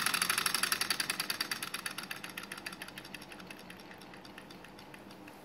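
Relay-switched hard-drive pulse motor clicking in a fast, even rhythm, growing steadily fainter as its drive pulses die away.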